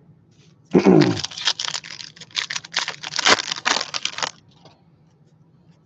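Trading card pack wrapper torn open and crinkled: a rip just under a second in, then dense crackly rustling that stops a little after four seconds in.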